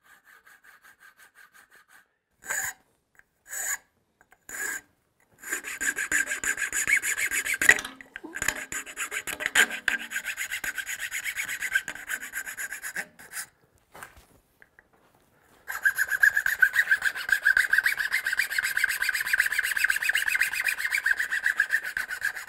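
A thin round file rasping back and forth across the tip of an osage orange bow limb, cutting the string nocks. A few separate short strokes come first, then long runs of quick strokes, with a pause of about two seconds past the middle.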